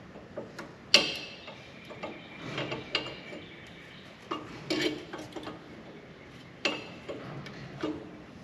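Metal tools and parts knocking and clinking during hand work on a brake assembly, in irregular bangs. Some bangs ring briefly, and the loudest is about a second in.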